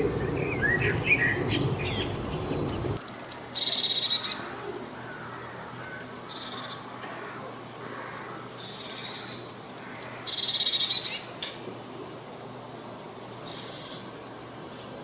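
Songbirds singing. A low background rumble under scattered calls cuts off abruptly about three seconds in. After that one bird repeats a short song of a few quick, very high notes followed by a lower buzzy trill, about every two to three seconds.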